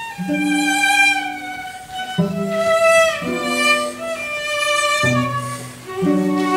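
Cello ensemble playing held, bowed chords with vibrato, moving to a new chord every second or two.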